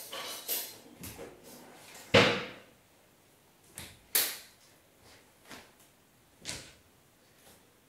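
Swishes of clothing and bare feet thudding and sliding on a tiled floor during taekwondo kicks and strikes: about half a dozen separate quick whooshes and thumps. The loudest comes about two seconds in.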